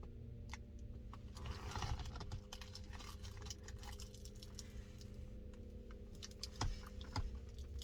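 Close-up chewing and mouth sounds from eating a grilled mac and cheese sandwich: soft irregular clicks and smacks, busier about two seconds in, with one sharper click near the end, over a low steady hum.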